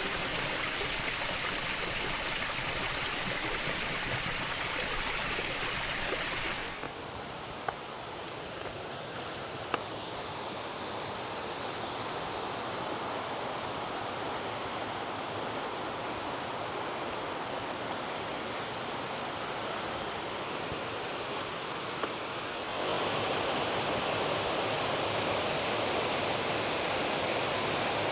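Waterfall: a steady rush of falling water. The sound changes abruptly about seven seconds in and again a few seconds before the end, with a faint high steady tone in the middle stretch.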